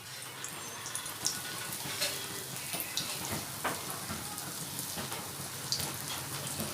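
Aloo vadas deep-frying in hot oil in a kadhai: a steady sizzle with many small crackles and pops.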